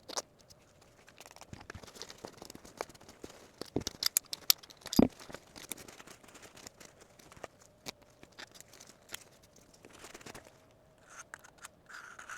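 Light clicks, taps and rustling as the Bodyguard 2.0 pistol's frame and slide are handled and wiped during a quick clean, with one sharper knock about five seconds in.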